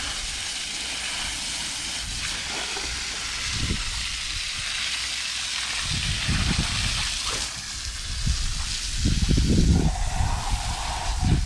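Water spraying from a hose onto a muddy four-wheeler at a wash bay, a steady hiss. Low rumbling thumps come in over the second half.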